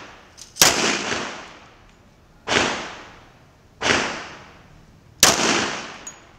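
Four pistol shots from a semi-automatic handgun, spaced about one and a half to two seconds apart. Each is a sharp crack followed by a short echo that dies away over about a second.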